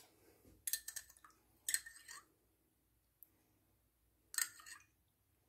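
Milk being drizzled from a cup onto a baked sponge cake sheet to soak it: three brief, faint, wet splashing sounds, about a second in, two seconds in, and again just after four seconds.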